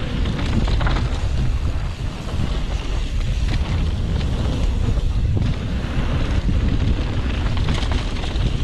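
Heavy wind buffeting on an action camera's microphone during a fast mountain-bike descent. Under it runs a steady rolling noise with scattered crackles and rattles from the tyres on the dirt trail and the bike.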